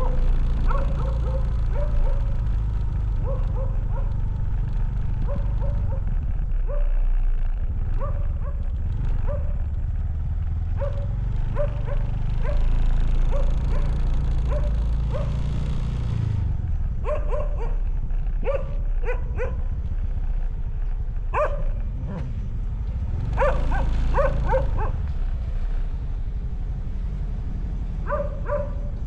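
Short, high yelping calls, irregularly about one a second, with quicker runs of them about two-thirds and four-fifths of the way through. Under them runs a steady low engine hum that rises and falls in pitch a few times.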